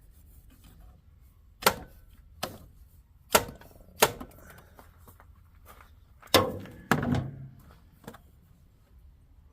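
Hand tools knocking and clanking against metal engine parts: about seven sharp, separate knocks at uneven intervals, the two loudest later on with a short ring after them.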